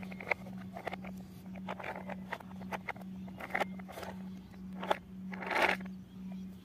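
Plastic take-apart toy train being handled and turned over: scattered light clicks and knocks of plastic, with a longer scrape about five and a half seconds in.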